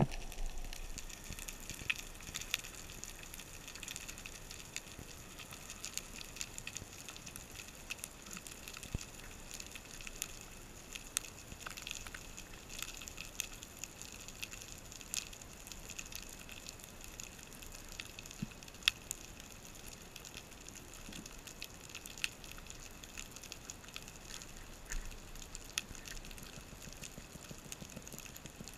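Underwater ambience: a steady hiss with irregular sharp clicks and crackles, a few of them louder and spread through.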